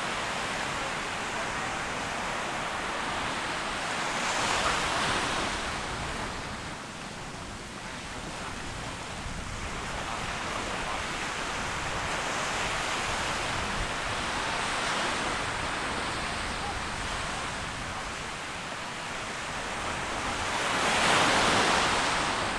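Small ocean waves breaking and washing up a sandy beach in a steady surf hiss. The wash swells about four seconds in and again, loudest, near the end.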